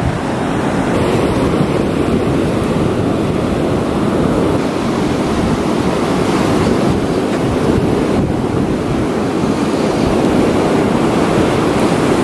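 Rough sea surf breaking on a sandy beach in strong wind, with the wind buffeting the microphone. A loud, steady rushing noise with a heavy low rumble.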